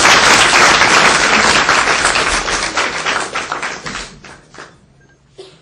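Audience applauding: dense clapping that thins out about four seconds in and dies away, leaving a few stray claps.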